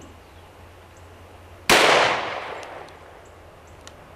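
A single shot from a Taurus Raging Bull .44 Magnum revolver, about a second and a half in: a sharp, loud report that dies away over about a second.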